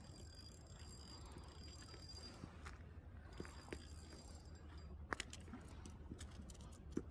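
Faint, steady low rumble with scattered light clicks and taps as a small fish is reeled in on an ultralight spinning reel and swung onto the stone quay.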